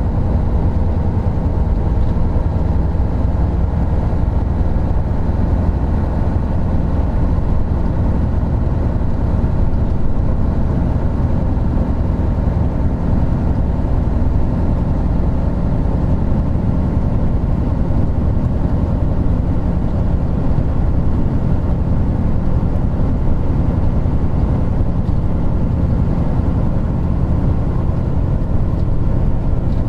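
Isuzu Gala III coach's 12PE1 V12 diesel engine running steadily under way, heard from inside the coach, with road and tyre noise. The engine note holds an even pitch, as at a steady cruising speed.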